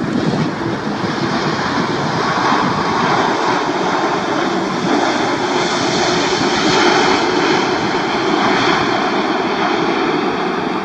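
Rolls-Royce Trent XWB jet engines of an Airbus A350-900 rolling out after touchdown: a loud, steady rushing roar that swells in the middle and eases slightly near the end.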